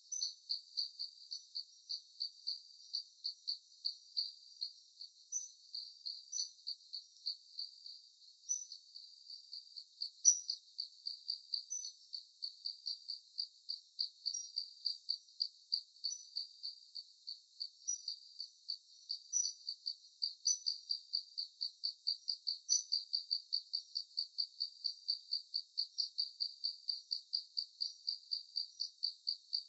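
Crickets chirping in a steady rhythm, about three chirps a second, with an occasional higher chirp over the top.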